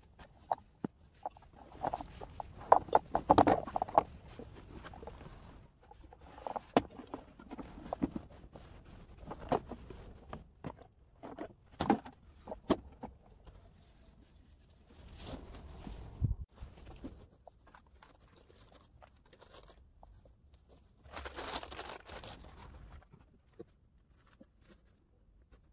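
Irregular clicks, knocks and rustling, as of things being handled, with stretches of louder rustling about two seconds in, around fifteen seconds and around twenty-one seconds.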